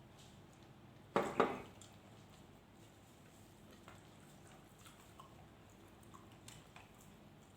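Quiet eating sounds: faint wet mouth clicks and small ticks of food and utensils, with a brief louder clatter about a second in.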